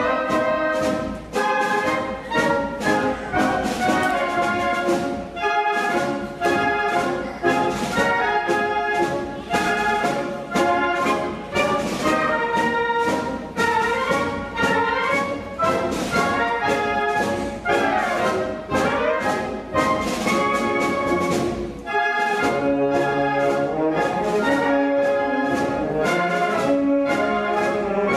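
Orchestral music with a brass section prominent and a strong regular beat, turning to longer held notes about three-quarters of the way through.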